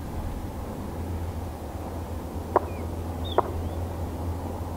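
Outdoor background of a steady low rumble, with a few faint, short, high bird chirps. Two sharp clicks a little under a second apart, just past halfway, stand out as the loudest sounds.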